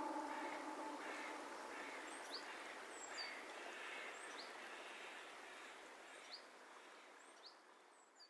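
Birdsong ambience at the fading end of a lo-fi music track: a soft outdoor hiss with scattered short, high bird chirps that die away to silence. The last held music notes end about a second in.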